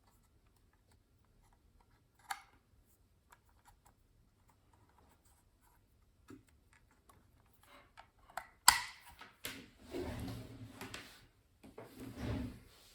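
Hands handling small objects: scattered light clicks and taps, a sharp snap about nine seconds in, then several seconds of rubbing and rustling.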